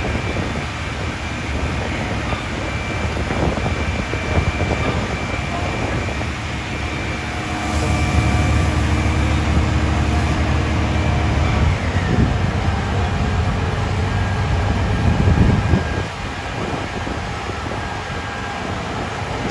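Heavy vehicle engine running on a city street, a steady low rumble that grows louder for several seconds around the middle, with a thin whine above it that slides down in pitch about twelve seconds in.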